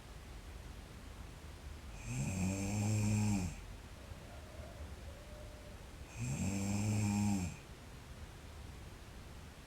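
A sleeping girl snoring: two drawn-out snores about four seconds apart, each about a second and a half long, rising in pitch as it begins, with quiet between them.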